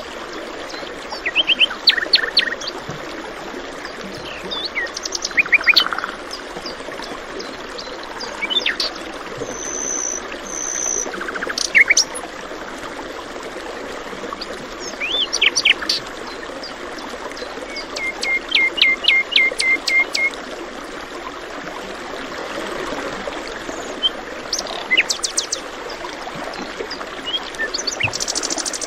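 Several birds chirping and trilling in short, scattered calls over a steady rush of flowing water.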